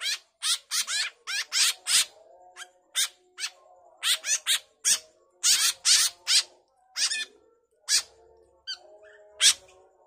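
Fledgling white-breasted woodswallows (kekep) giving short, harsh begging calls, about two a second and some in quick pairs, while being hand-fed.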